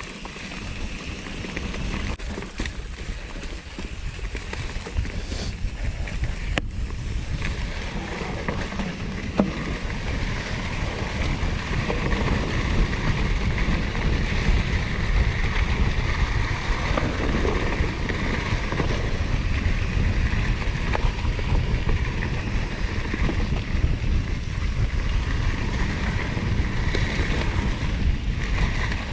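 Riding noise of a 2016 Norco Torrent plus-tyre hardtail mountain bike on a trail, mostly wind rushing over the microphone. It grows louder over the first dozen seconds, then holds steady.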